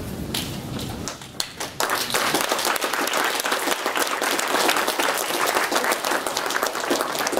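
Audience applauding: a few scattered claps at first, swelling into full applause about two seconds in.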